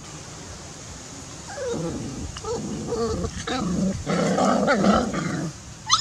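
Puppies whimpering and growling while being held and handled: a run of short whiny cries starting about a second and a half in and growing denser and louder toward the end, followed by a quick high rising sound.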